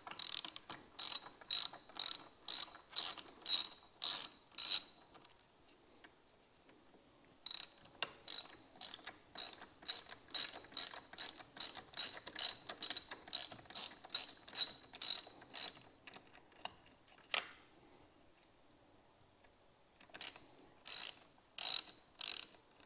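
Hand ratchet driver clicking in steady runs, about two and a half clicks a second, as T10 Torx screws are backed out of the convertible top's front header trim. The clicking stops twice for a few seconds, with one lone click in the second gap.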